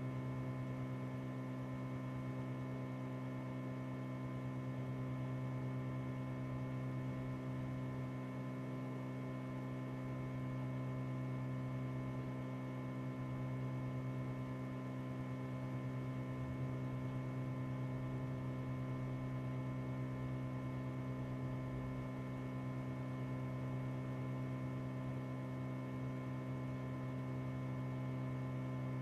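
Steady electrical hum: one strong low tone with many fainter steady tones stacked above it, unchanging throughout, with no other sounds.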